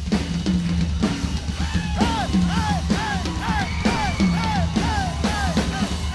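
A live band playing behind a drum kit, with a low bass note held under steady drum hits and a repeated falling tone about twice a second.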